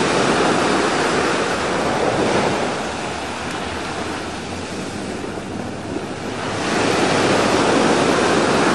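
Sea surf breaking and washing up on the shore: a steady rush that is loud at first, eases off in the middle, and swells again about two-thirds of the way through.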